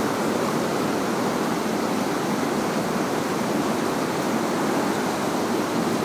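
Steady rushing of a waterfall and the stream below it, an unbroken hiss of falling and flowing water.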